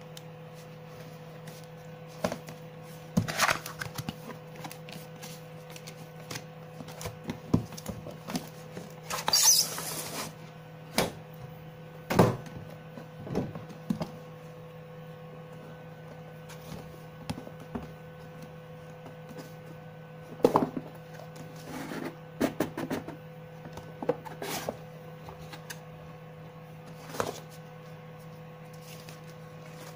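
Cardboard packaging being opened and handled: scattered taps, knocks and rustles of a graphics card's retail box, with a longer rustle about nine seconds in and a sharp knock near twelve seconds. A steady low hum sits underneath.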